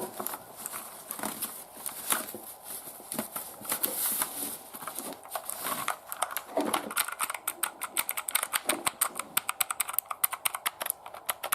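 Clicky-switch Motospeed CK888 mechanical keyboard being typed on: scattered key clicks at first, then fast, continuous typing from a little past halfway.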